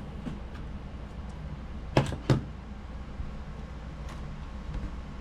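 Two sharp plastic clicks about two seconds in, a third of a second apart, with a few faint ticks around them, as a VHS tape and the VCR are handled to set up a playback test. A low steady hum runs underneath.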